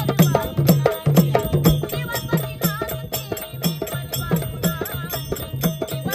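A woman singing a Marathi devotional folk song to Khandoba, a murali's lament, over a quick, steady plucking of a tuntune, the one-string drone lute with a tin resonator.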